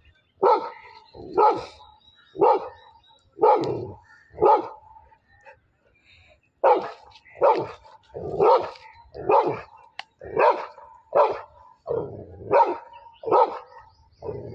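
A Labrador barking over and over at a water buffalo, about one bark a second, with a pause of a couple of seconds partway through.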